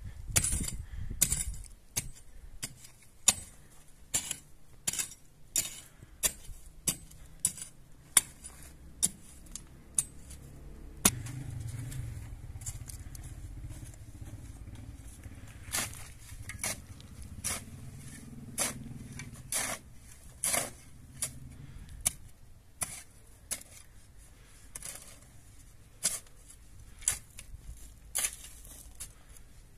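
Metal digging tools, a hoe and then a shovel, chopping and scraping into dry, stony soil, with a sharp strike every second or so. A low steady rumble joins about eleven seconds in and lasts about ten seconds.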